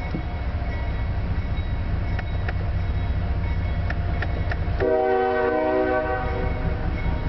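CSX diesel locomotive's multi-note horn sounding one short blast of about a second and a half, about five seconds in, over a steady low rumble.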